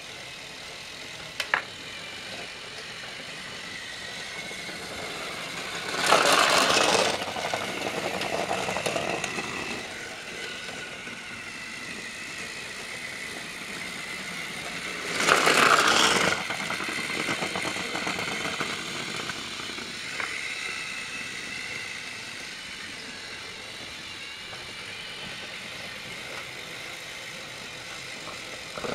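Small electric motors of battery-powered Trackmaster toy trains whirring steadily on plastic track, with two louder surges of a second or two, about six and fifteen seconds in, each fading off over the next couple of seconds.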